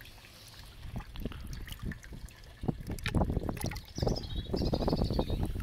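Water sloshing and splashing in a tub as a hand reaches in to grab a small carp. There are light drips and small splashes at first, then irregular, louder splashing from about three seconds in.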